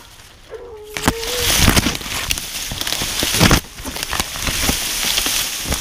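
Dense crackling and rustling of grass and brush being pushed through, full of small snaps, starting about a second and a half in. Before it comes a short wavering whistle-like tone.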